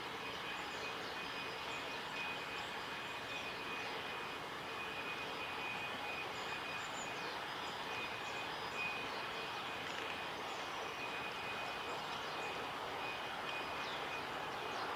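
Steady rush of running water at a shallow woodland bathing pool, with scattered faint high chirps of small birds and a thin steady high-pitched tone throughout.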